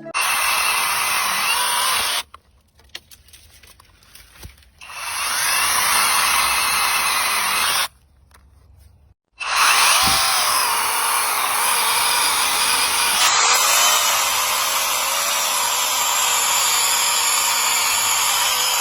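Chainsaw cutting wood, loud and steady, breaking off abruptly about two seconds in and again about eight seconds in, each time for a couple of seconds before the cutting resumes.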